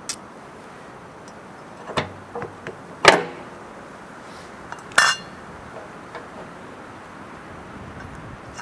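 Snowblower parts and hand tools clanking and clinking as the rear pulley comes off the auger shaft: a few sharp metal knocks about two seconds in, the loudest just after three seconds, and a ringing clink about five seconds in.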